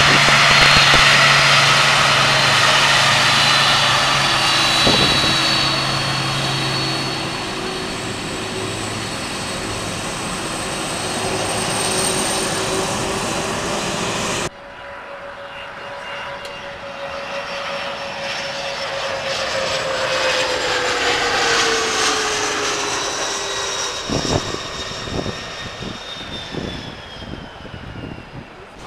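Boeing 747 jet engines at close range as the airliner taxis past: a loud rushing noise with a steady high whine. After a cut about halfway through comes a second stretch of jet noise whose whine falls slowly in pitch as the aircraft moves away, with a few bumps near the end.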